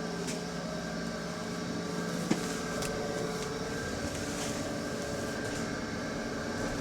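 Inside a moving bus: a steady hum holding several constant whining tones, the weird noise from the back of the bus. A single sharp click sounds about two seconds in.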